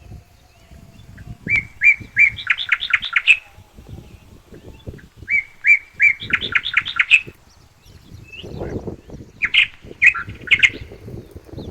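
A songbird singing: a short run of quick chirping notes, repeated three times a few seconds apart.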